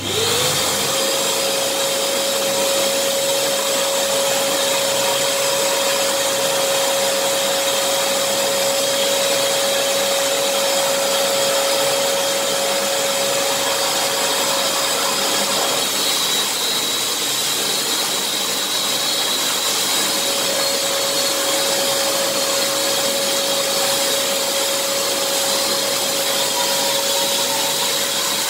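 Makita DSL801Z drywall sander and a Makita VC2512L L-class vacuum extractor, hose-connected, switching on and running together: a steady whine that rises quickly to pitch at the start, over the steady rush of the vacuum. The whine dips briefly a little past halfway, then holds.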